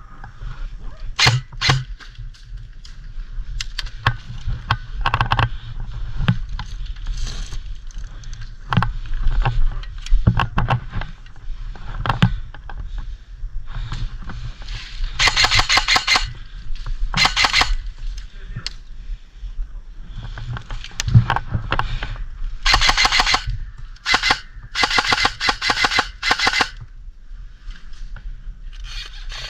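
Airsoft guns firing rapid full-auto bursts, with scattered single shots and several longer bursts in the second half.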